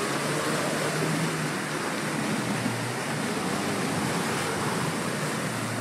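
A new Land Rover Defender's engine running steadily at low revs as it wades through deep muddy water, with a steady churning and splashing of water throughout.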